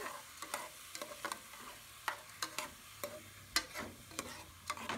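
A metal spoon scraping and clinking against a stainless steel pot as washed rice is stirred, frying in oil with onions, garlic and carrots until its water cooks off. There are irregular scrapes, a few a second, over a faint sizzle.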